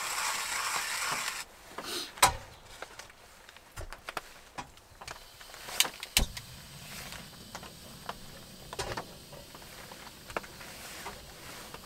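Hand coffee grinder cranking steadily, stopping suddenly about a second and a half in. Then scattered clicks and knocks of camp cookware being handled and set down on a metal table, with a sharp knock about two seconds in and another about six seconds in.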